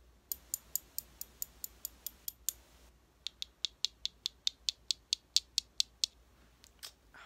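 A small handheld eyebrow grooming tool clicking rapidly: about five sharp clicks a second in two runs of roughly a dozen each, with a short pause between.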